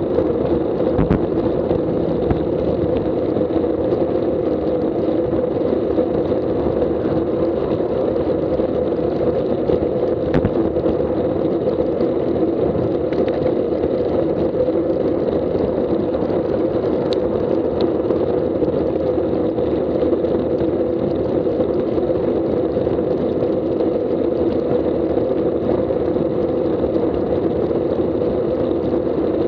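Steady rush of wind and road noise on the microphone of a road bike ridden at about 20 mph, with a few faint clicks.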